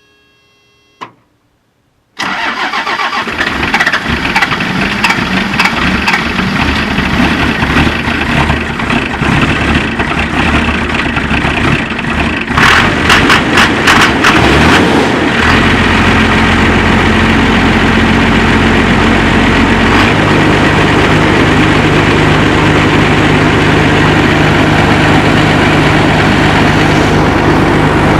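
First-generation Dodge Cummins 5.9-litre inline-six diesel cold-started at about −30: a click, then about ten seconds of cranking on the starter. It catches with a burst of loud knocks about 12 seconds in and settles into a steady idle whose note changes once, about 20 seconds in. The owner blames the hard start on the engine losing fuel prime through a worn lift pump.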